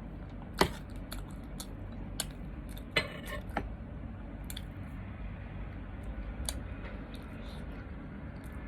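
Close-up eating sounds: chewing, with scattered sharp clicks of a utensil against dishware, the loudest about half a second and three seconds in, over a steady low background hum.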